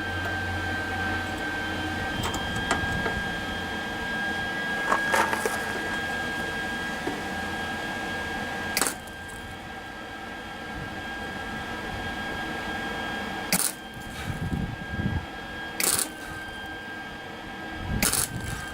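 Sharp metallic clicks and clanks of tools and small parts being handled, about five over the stretch, over a steady high whine.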